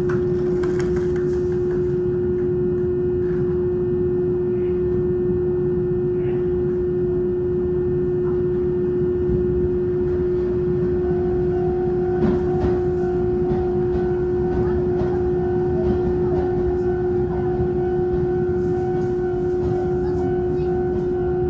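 Steady electrical hum of a stopped Izuhakone Railway 5000 series electric train's onboard equipment, heard inside the car. It is one unbroken tone over a low rumble, and a second, higher tone joins about halfway through.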